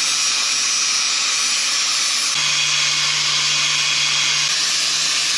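Angle grinder running steadily with a high hiss, its motor hum strengthening about two seconds in and easing near the end.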